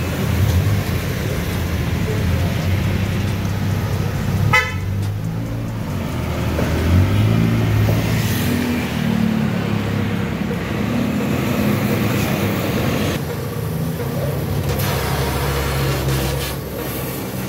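Car engine running through an aftermarket racing exhaust: a low drone that shifts in pitch as it is revved. There is a brief rapid rattle about four and a half seconds in.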